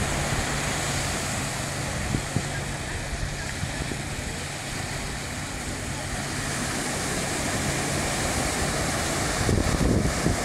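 Small waves washing onto a sandy beach, with wind buffeting the microphone, gusting near the end, and the chatter of people on the beach. A steady low hum runs under it for the first two-thirds.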